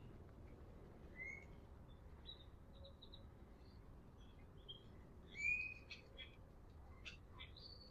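Birds calling faintly over a low steady background: scattered short high chirps and a few rising whistled notes, the loudest about five and a half seconds in.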